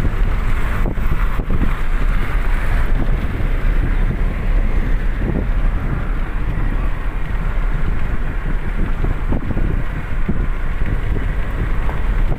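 Steady road and engine rumble of a moving vehicle heard from inside the cabin, with wind noise on the microphone.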